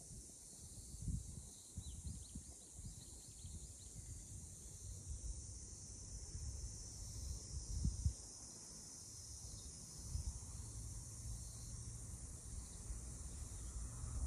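Quiet outdoor ambience: a steady high hiss with occasional low bumps, the loudest about eight seconds in.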